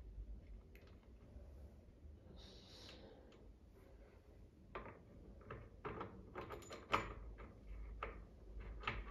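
Handling noises from the Ideal Automatic sewing machine being tipped over and held on the table: a brief rustle, then a string of light clicks and knocks on its plastic housing, the sharpest about seven seconds in.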